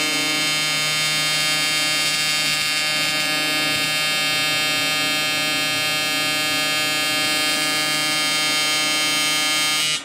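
AC TIG welding arc buzzing steadily on a cast aluminum motorcycle engine case, reflowing the metal so that pores and impurities in the casting come out. The arc cuts off abruptly at the very end.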